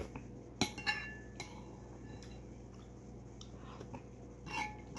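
Metal spoon clinking against a ceramic bowl a few times, sharp short ticks with a brief ring, while thick porridge is scooped, with mouth sounds of eating.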